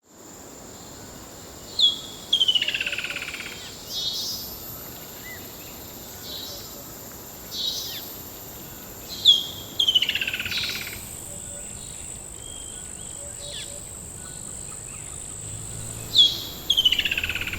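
Forest birdsong. One bird repeats the same song three times, about seven seconds apart: a sharp high note, then a quick run of notes falling in pitch over about a second and a half. Other birds call softly in between, over a thin, steady high tone.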